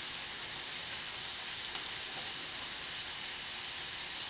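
Food sizzling steadily as it fries in a pan on the stove.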